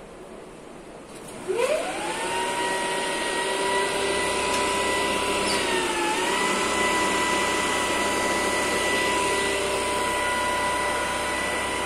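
DC shunt motor of a motor-alternator set starting up about a second and a half in: a whine rises quickly in pitch and settles into a steady running whine as the set comes up to speed. The pitch dips briefly about six seconds in and recovers.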